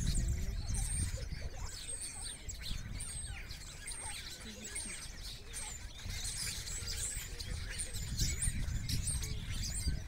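A flock of small songbirds perched in a bare tree, calling together in a dense chorus of short high chirps and whistles. A low rumble runs underneath.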